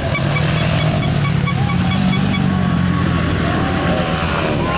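Motocross motorcycle engines revving as riders pass on the dirt track, with the engine pitch climbing about two seconds in.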